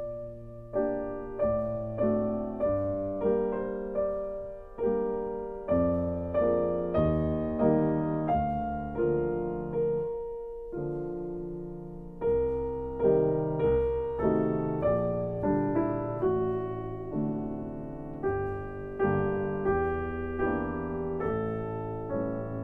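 Slow solo piano music, notes and chords struck about every half second to second, each ringing and fading, with a longer held chord about ten seconds in.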